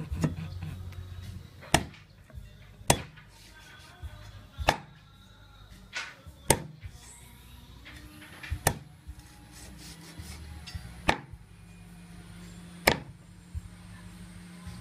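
Heavy meat cleaver chopping through a lizard's meat and bones on a wooden chopping block: about a dozen sharp, separate chops, irregularly spaced a second or two apart.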